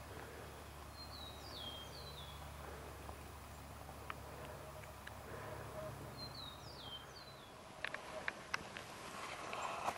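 A songbird sings the same short phrase twice, about five seconds apart: a few high notes slurring downward, over a faint low rumble. Near the end come several sharp clicks and a rustle.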